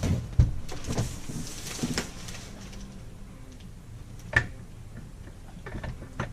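Scattered knocks and clunks from hand work on an RV toilet being fitted and aligned: several sharp knocks in the first two seconds, a single sharp knock after about four seconds, and a small cluster near the end.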